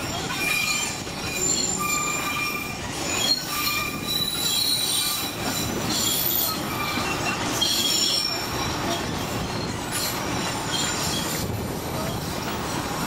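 Narrow-gauge tourist train rolling along the track: a steady rumble of the cars with steel wheels squealing against the rails in many short, high shrieks at shifting pitches.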